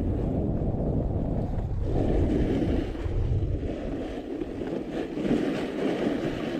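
Wind rushing over a downhill skier's camera microphone, with skis hissing and scraping over packed snow; the hiss grows a little about two seconds in.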